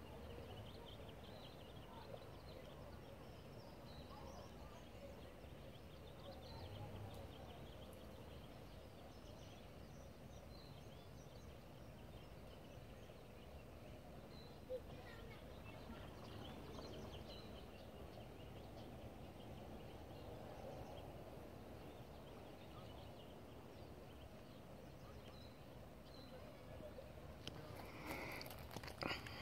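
Quiet outdoor ambience by a pond, with scattered faint high bird chirps. A couple of brief knocks come near the end.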